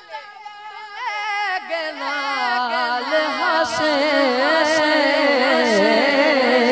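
A male singer performing Punjabi Sufi poetry (kalam) into a microphone, holding long wavering, ornamented notes that grow louder, over a steady accompanying drone. Three sharp percussive strikes land about a second apart near the middle.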